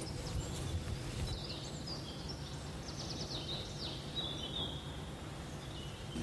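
Birds calling in short high-pitched chirps, starting about a second in, over a steady low outdoor background rumble.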